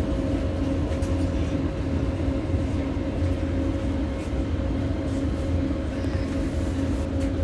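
Doha Metro train pulling out of a station into a tunnel, heard from inside the front car: a steady low rumble with a constant electric hum.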